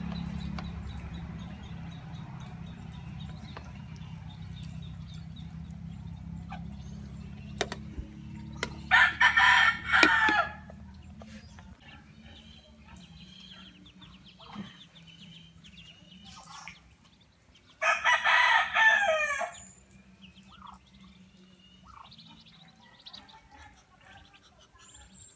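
Rooster crowing twice, each crow lasting a second and a half or so, about eight seconds apart, over a low steady hum that fades out about halfway through.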